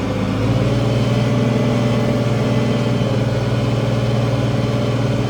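International 1566 tractor's turbocharged six-cylinder diesel running steadily while pulling a field cultivator. The engine note steps up slightly about half a second in, then holds level.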